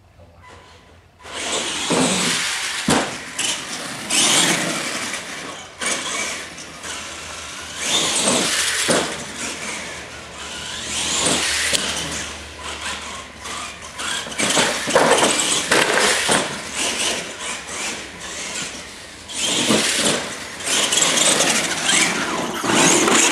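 Radio-controlled monster truck driving hard on a concrete floor, starting about a second in: motor and gear whine rising and falling with the throttle, tires scrubbing, and a few sharp knocks.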